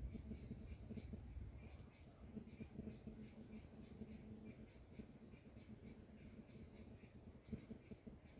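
Insect trilling at a high pitch in phrases about a second long separated by brief breaks, faint over quiet forest ambience.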